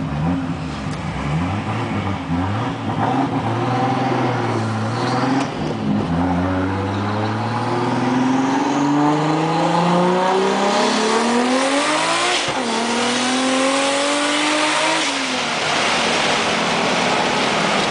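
Turbocharged 2JZ inline-six of a single-turbo Toyota Supra accelerating hard. The revs rise and fall unevenly for the first few seconds, then climb steadily, drop sharply at a gear change about twelve seconds in, climb again, and fall away near fifteen seconds into a steady rush of noise.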